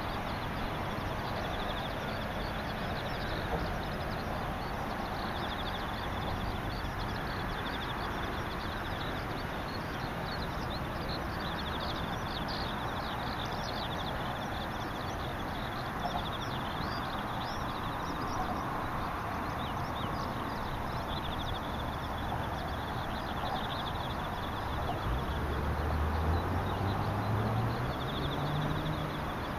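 Insects trilling in repeated short pulsed bursts, with scattered high chirping calls from birds, over a steady outdoor hiss. Near the end a low hum rises in pitch and grows louder.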